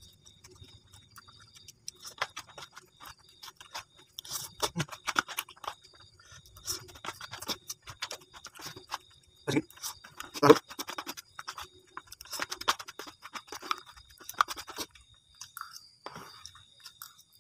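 Close-up eating sounds: instant fried noodles being slurped and chewed, with a metal spoon and fork scraping and clicking against the bowl in short, irregular strokes. A couple of louder clinks come about halfway through.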